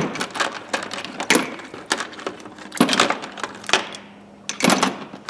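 Steel Craftsman sockets clinking against one another as they are handled and set into a container: several separate metallic clinks with short ringing, at irregular intervals.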